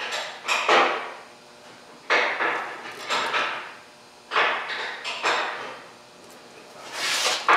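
A hand ratchet clicking in short strokes while tightening a brake caliper bolt. There are about seven strokes at uneven gaps of roughly a second.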